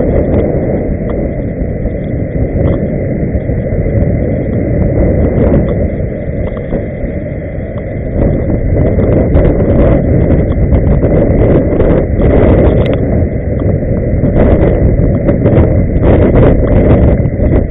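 Loud, steady low rumble of inline-skate wheels rolling on pavement mixed with wind on the microphone, with scattered light clicks and a faint steady high whine.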